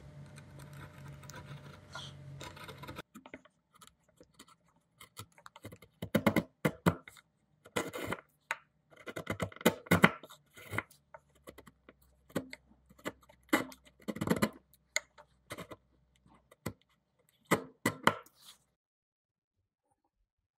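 A wood chisel breaking out the thin waste slices left between table-saw kerfs in a notch. A steady scraping for the first few seconds is followed by a long run of sharp, irregular cracks and snaps as the slices split off, and it stops a couple of seconds before the end.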